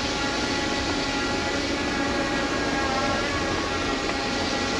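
Camera drone hovering nearby: a steady whine of several high tones from its propellers over a rushing hiss, the tones wavering slightly about three seconds in.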